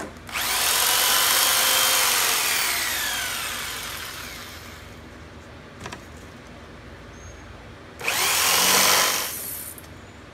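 Corded jigsaw cutting an outlet opening in a thin plywood panel: one long cut of about five seconds with the motor pitch sliding down as it slows, then a second short cut of about a second and a half near the end.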